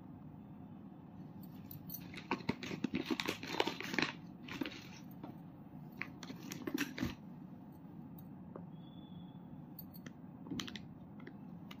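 Handling noise: bursts of small clicks, taps and rustles from rings and a pocket calculator being picked up and set down on a cloth-covered surface. The noise is busiest between about two and seven seconds in, with a few stray clicks near the end.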